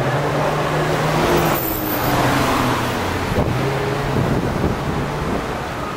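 City street traffic: the engine hum of passing vehicles, a double-decker bus among them, wavering in pitch over steady road noise. The audio is sped up to double speed.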